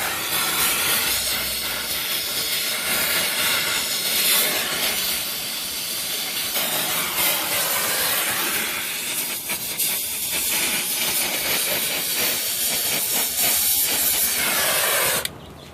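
Brazing torch flame hissing steadily during high-temperature brazing of an AC unit's connections, then shut off abruptly near the end.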